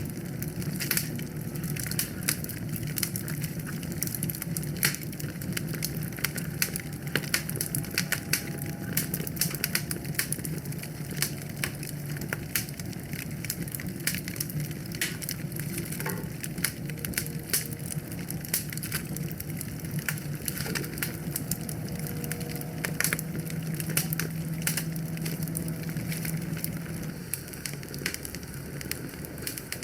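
Wood fire burning and crackling, with frequent sharp pops and snaps over a steady low rumble.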